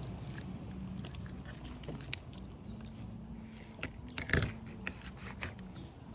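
Fillet knife cutting through a mahi-mahi's flesh and skin on a plastic table: irregular small clicks and scrapes from the blade, with a louder cluster of crackles about four seconds in.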